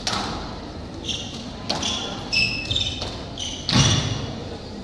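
Squash rally: sharp cracks of the ball being struck and hitting the walls, the loudest a deeper thud near the end, with short high squeaks of court shoes on the wooden floor in between.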